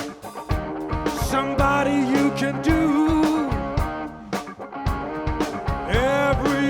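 Live blues band playing between sung lines: a guitar plays bending melodic lines over steady drum-kit beats.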